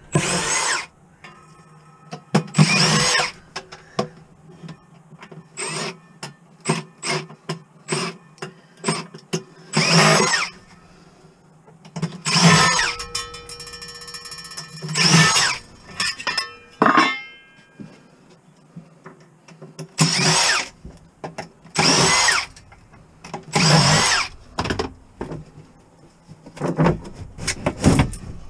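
Cordless drill-driver run in about nine short bursts, its motor whine rising and falling in pitch each time, as it backs screws out of a rear-projection TV's lens assembly. Small clicks and knocks of parts being handled fall between the bursts.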